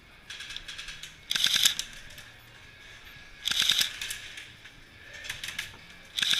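Airsoft guns firing short full-auto bursts: three loud rapid rattles of shots, each under a second, with lighter bursts between them.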